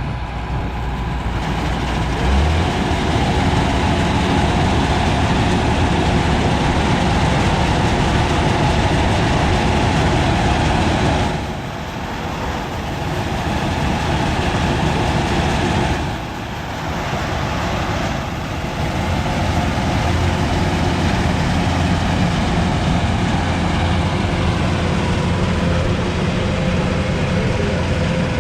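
A farm machine's engine running steadily, loud and dense, easing off briefly about 11 and 16 seconds in.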